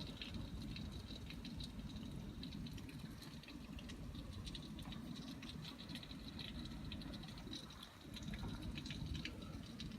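Hail pattering faintly, heard from indoors: many small, scattered ticks over a steady low rush.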